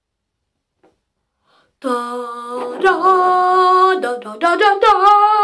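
After about two seconds of near silence, a single voice sings a few long held notes, the last ones wavering in pitch.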